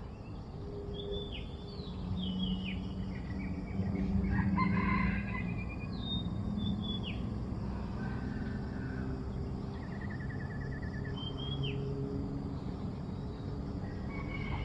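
A rooster crowing and other birds calling in short, sliding calls, loudest about four to five seconds in, with a brief rapid rattle near the ten-second mark, over a steady low hum.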